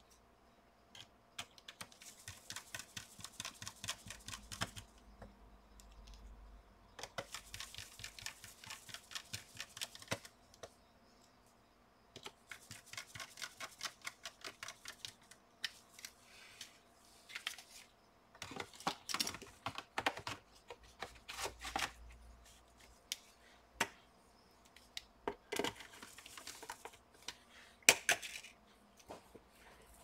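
Small screwdriver driving screws into a laptop's plastic bottom cover: runs of rapid small clicks lasting a few seconds each, with gaps between and a sharper, louder click near the end.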